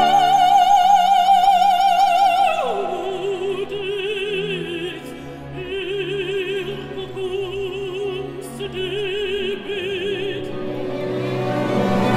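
Operatic mezzo-soprano solo voice with a wide vibrato, over a quiet orchestral accompaniment. She holds a loud high note, drops steeply in pitch about two and a half seconds in, and then sings softer phrases lower down.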